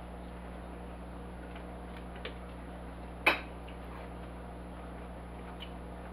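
Steady low room hum with a faint high-pitched whine, broken by a small tick about two seconds in and one sharp click a second later.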